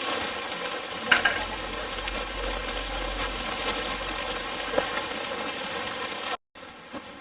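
Food frying in a pan over a campfire: a steady sizzle with scattered sharp pops, cutting off abruptly a little over six seconds in.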